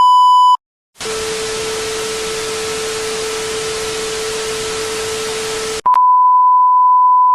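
An electronic beep, then about five seconds of static-like hiss with a steady lower tone under it, cutting off abruptly, then a long steady beep at the same pitch as the first.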